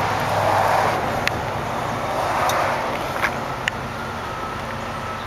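Motor vehicle noise: a steady low hum under a rushing sound that swells and fades every second or two, with a few sharp clicks.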